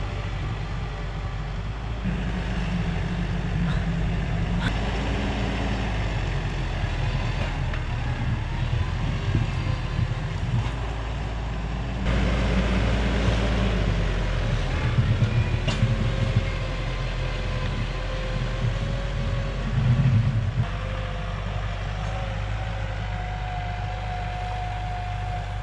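A vehicle engine running under load while driving through deep mud, working harder in surges, loudest about halfway through and again briefly a few seconds later.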